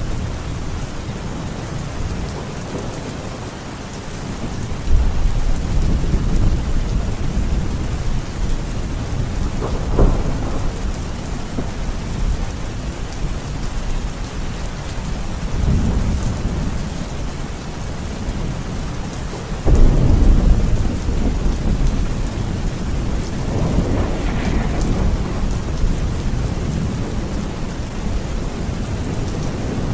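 Heavy rain falling steadily, with thunder rumbling several times: a sharper crack about ten seconds in, and the loudest, deep rumble about two-thirds of the way through.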